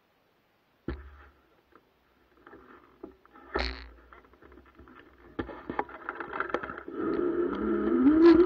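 Cybertrack 100 e-bike ridden over a rough dirt trail: knocks and rattles as the bike and camera jolt over the ground, with a heavier thump about three and a half seconds in. In the last second or so the electric motor's whine rises in pitch as the bike speeds up, over a growing rush of riding noise.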